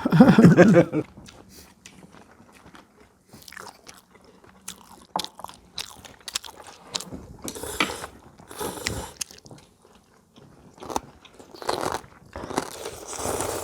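People eating a home-cooked Korean meal: crunchy bites and chewing, with scattered short clicks and knocks, busier in the second half. A voice is heard briefly at the start.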